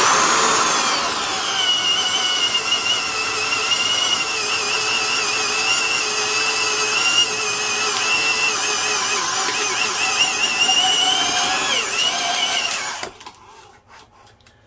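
Porter-Cable #372 half-inch D-handle drill, its 3.6-amp motor geared down through a triple gear reduction, boring a 1-inch auger bit into a block of wood. The whine drops in pitch in the first second or so as the bit bites, holds steady under load with slight wavering, then stops about thirteen seconds in.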